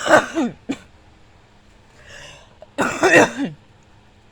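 A person coughing, two short fits about three seconds apart.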